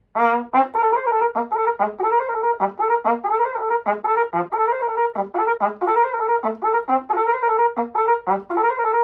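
Yamaha YCR-2330IIs silver-plated cornet, its valve casings freshly repaired, played in a quick passage of short notes that jump up and down in pitch.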